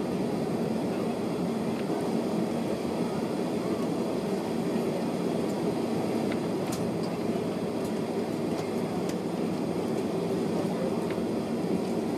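Steady drone of an airliner's jet engines and cabin air, heard from inside the cabin as the plane taxis.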